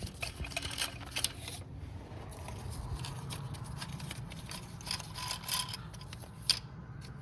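Small metallic clicks and scrapes of a 17 mm wrench working the high-pressure fuel line fittings on an engine, over a low steady hum.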